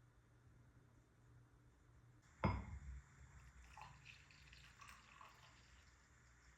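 A single sharp knock about two and a half seconds in, with a short ring after it, followed by a few faint light taps.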